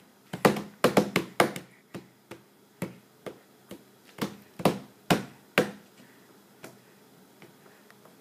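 Toddler's hand slapping a table covered with an oilcloth, a string of sharp, irregular slaps. They come quickly in the first two seconds, then space out and grow fainter after about five seconds.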